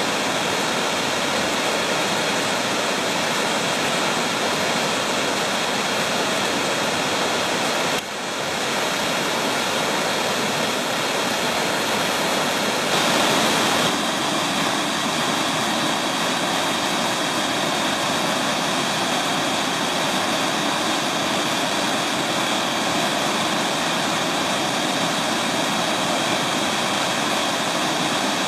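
The South Umpqua River cascading over the sloping bedrock ledges of South Umpqua Falls: a steady, even rush of falling water. It dips briefly about eight seconds in and shifts slightly in tone around fourteen seconds in.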